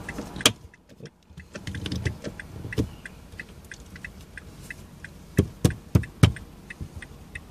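MONTAR car phone mount's plastic clamp arms clicking and knocking as a smartphone is pressed into them and adjusted, with four sharper clicks about two-thirds of the way through.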